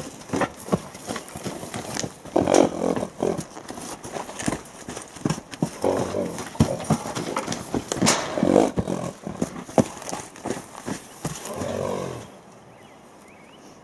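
A young wild mustang gelding's hooves moving over wet, muddy ground in an irregular series of soft thuds and knocks, going quiet about twelve seconds in as the horse stops.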